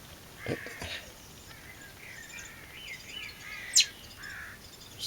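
Birds chirping and calling in wavering phrases, with one short, sharp, high-pitched sound about three-quarters of the way through and a soft low thump about half a second in.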